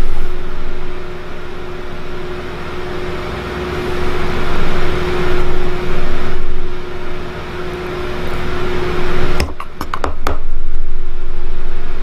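Steady motor hum with a constant low tone, broken by a quick cluster of clicks and knocks about nine and a half seconds in.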